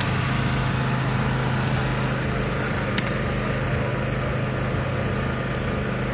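A small engine running with a steady low hum over background noise, with a single sharp click about three seconds in.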